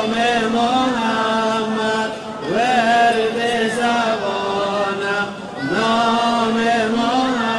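Islamic devotional chant (nasheed): a voice in long, drawn-out held phrases, each opening with a rising slide. Three phrases in all, one running on from before and new ones beginning about two and a half and five and a half seconds in.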